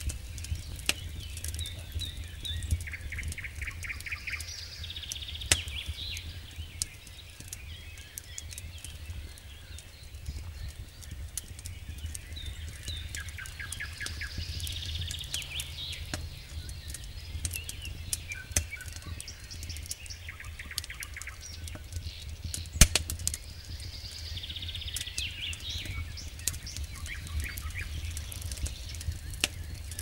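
Wood campfire crackling steadily with sharp snaps, and a few louder pops about five seconds in and near the end. High chirps and trills come and go over it.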